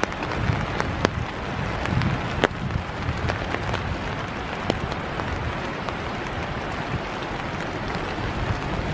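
Steady winter rain falling through forest, with irregular sharp ticks of raindrops striking close by and low muffled thumps.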